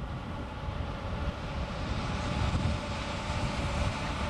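JNR Class EF64 electric locomotive standing with a steady hum and low rumble. A rising rush from another train passing joins in about two seconds in.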